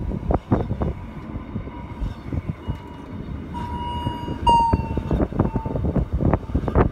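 Bernina Express train running, a low rumble with irregular knocks and clatter from the carriage. In the middle a thin, high metallic whine of wheels squealing on the rails swells up, wavers in pitch, then drops a little and fades.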